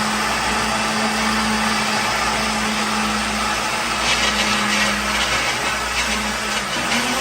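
Electric kitchen blender running with a steady motor hum. About four seconds in, a rougher, hissier grinding joins for a few seconds, and near the end the motor's pitch dips and then rises.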